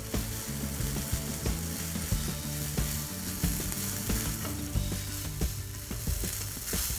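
A spatula stirring and scraping rice around a nonstick pan, making a run of irregular clicks and scrapes over a light sizzle of the tempered rice frying.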